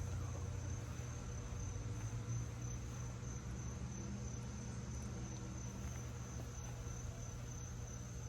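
Steady, unbroken high-pitched insect chorus with a low steady hum beneath it.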